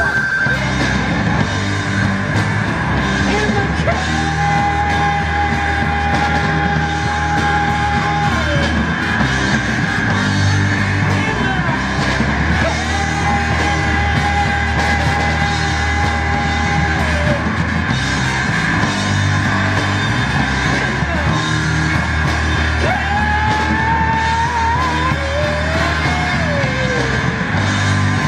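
Street band playing a tune over a steady beat and bass line, with long held notes about four seconds each, twice, and a sliding note rising and falling near the end.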